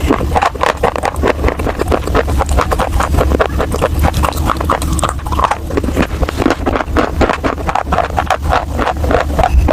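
Close-miked chewing of baked clay pot pieces: dense, rapid crunching and crackling over a steady low rumble.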